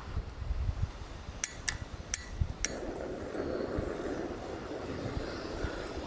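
Piezo igniter of a SOTO Regulator gas camping stove clicking four times, after which the burner catches and burns with a steady rushing sound. Wind buffets the microphone throughout.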